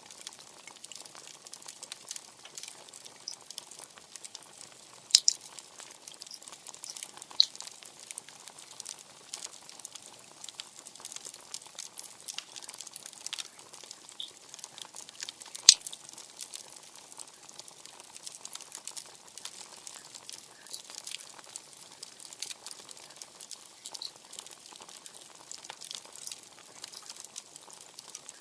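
Bonfire crackling steadily, thick with small snaps, with a few sharper, louder pops; the loudest comes just past the middle.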